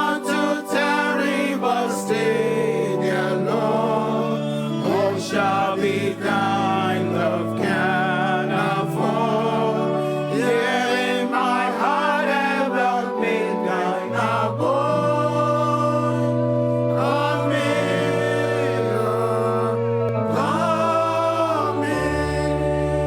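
A church congregation singing a slow hymn together, with sustained instrumental chords and long bass notes underneath.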